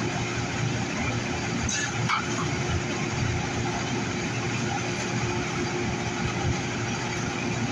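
Steady hum and rush of a light-rail train standing at a station platform, with one constant tone running through it and a couple of faint clicks about two seconds in.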